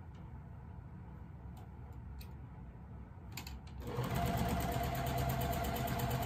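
Electric sewing machine stitching a seam at a steady speed, starting about two-thirds of the way in, after a few faint clicks while the fabric is set under the needle.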